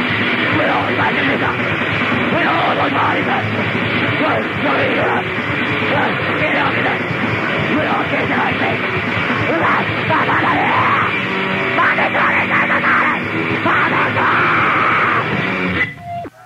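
Grindcore band playing at full tilt from a split cassette: dense distorted guitar, drums and vocals. The song cuts off abruptly near the end.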